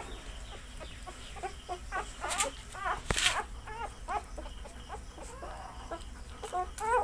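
Newborn Labrador puppies squeaking and whimpering in many short, high cries that rise and fall in pitch, as they are handled and put to the mother's teats to nurse. Twice, at about two and a half and three seconds in, there is a brief rustle of handling.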